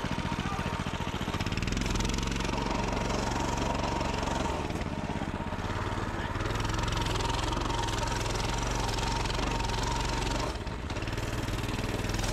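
A pit bike's small single-cylinder engine running throughout, its pitch rising and falling with the throttle as the bike is ridden through deep snow, with a short drop about ten and a half seconds in.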